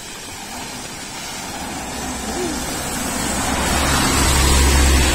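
A red-and-white state transport bus approaching and passing close by on a wet road. Its engine drone and the swish of its tyres grow steadily louder to a peak near the end.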